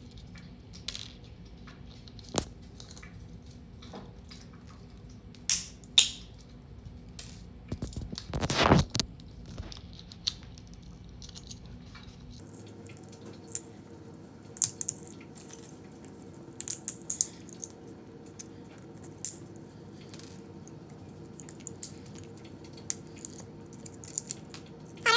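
Tree supports being snapped and pulled off a freshly finished 3D-printed plastic part: scattered sharp clicks and cracks of breaking plastic, with a louder crunching stretch about eight seconds in.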